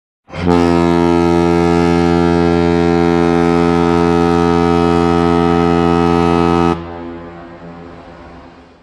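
One long, low, steady horn blast, like a ship's foghorn, held for about six seconds and then cut off sharply, leaving a fading echo.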